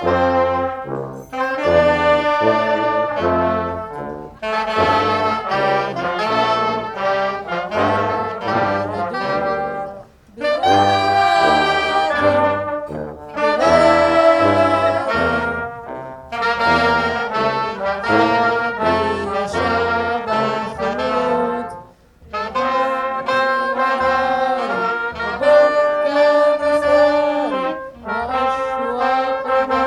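Brass band playing a tune: trombones and trumpets with saxophone over a stepping bass line, in phrases with brief pauses about ten and twenty-two seconds in.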